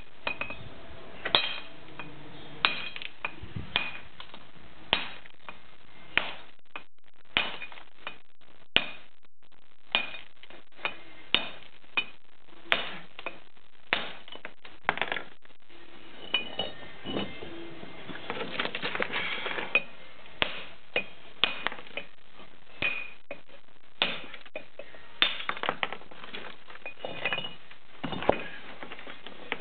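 A stonemason's hammer striking a chisel held against a stone block, dressing its face: sharp clinking blows about once a second, with a run of quicker, lighter taps a little past halfway.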